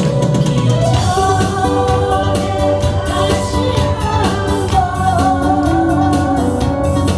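An old Korean popular song sung over an instrumental accompaniment with a steady beat, the voice holding long notes.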